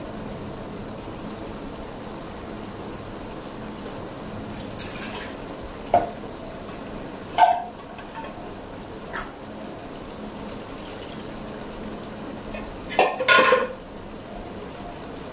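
Chopped ridge gourd and tomato sizzling steadily in a stainless steel pot over a gas flame. A few short clinks of kitchenware break in about six, seven and a half and nine seconds in, with a louder clatter near the end.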